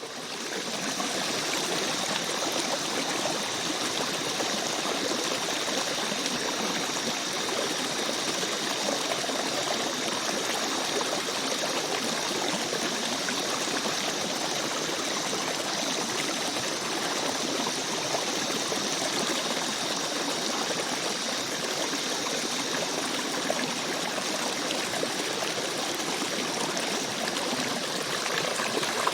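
Rainforest stream flowing steadily, a continuous rush and trickle of water that fades in at the start, with two faint steady high-pitched tones over it.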